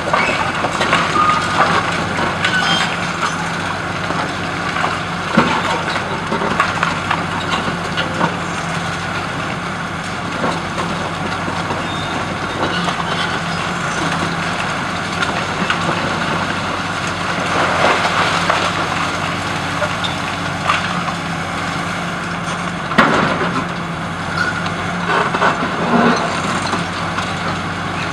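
Demolition excavator's diesel engine running steadily while its hydraulic crusher jaws bite through the reinforced concrete of a building, with cracking, crunching and falling rubble throughout. Sharp cracks come about five seconds in and again past twenty seconds, with a longer crunching spell between them.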